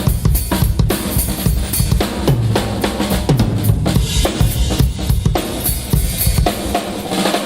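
A drum kit played in a busy rhythm: bass drum, snare and cymbals, with falling tom fills.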